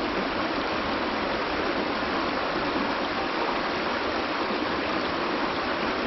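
Mountain stream water rushing steadily, an even, unbroken rush.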